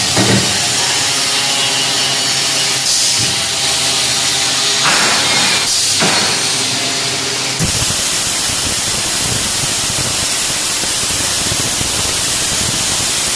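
Automatic scaffolding prop welding machine running with a steady hum and hiss; about halfway through the sound switches abruptly to a loud, even, crackling hiss of the welding arc.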